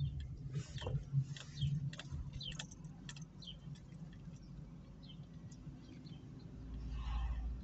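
Cabin sound of an Opel Meriva driving slowly: a steady low engine and road hum. Short high chirps and squeaks sound over it in the first few seconds, and a louder rumbling swell comes near the end.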